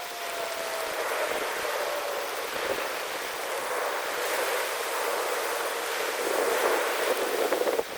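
Sea surf washing steadily onto a beach, with a faint falling whine in the first couple of seconds.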